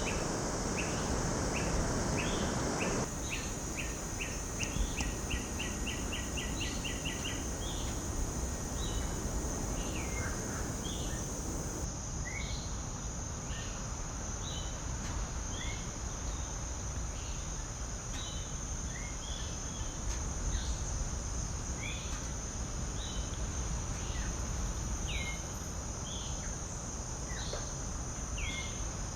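Tropical insects buzzing steadily at a high pitch while birds give short, repeated calls, with one quick run of rapid notes a few seconds in. A steady low background noise lies underneath throughout.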